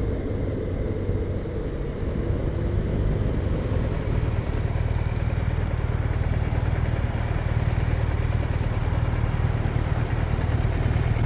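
BMW R1200RT boxer-twin engine running steadily at low speed under the rider-mounted microphone, with wind rush. From about four seconds in the wind eases and the low engine hum comes to the fore as the bike slows and turns at a roundabout.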